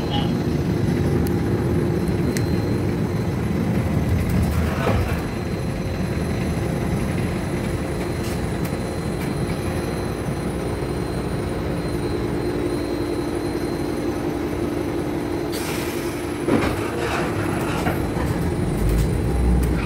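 Ride noise inside a replica vintage streetcar in motion: a steady low rumble of wheels on rail with a held hum running under it. A few short clicks and knocks come through, the loudest about sixteen seconds in.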